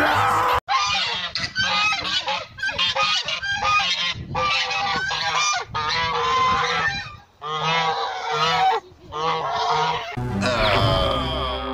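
White domestic geese honking loudly and repeatedly, in runs of rapid honks about a second and a half long separated by brief pauses.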